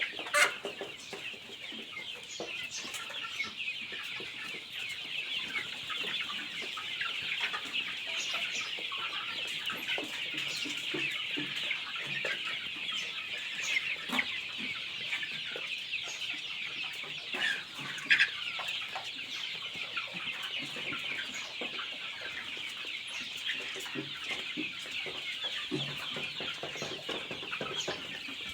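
A large flock of chickens in a poultry shed, many birds cheeping and clucking at once in a steady, dense chorus. A couple of sharp knocks stand out, one just after the start and one about eighteen seconds in.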